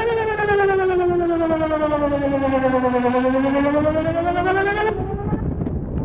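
Whelen 2910 electronic outdoor warning siren sounding a wail during a test: its pitch falls slowly for about three seconds, then rises again, and the tone stops abruptly about five seconds in.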